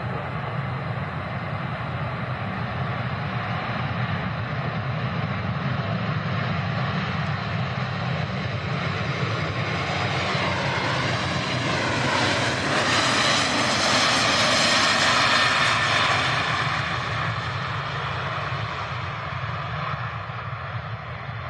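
Airbus A330 airliner's twin jet engines at takeoff power on the runway: a continuous jet engine noise that swells as the aircraft rolls past, with a sweeping, phasing whine a little before halfway, loudest just after the middle, then fading as it moves away.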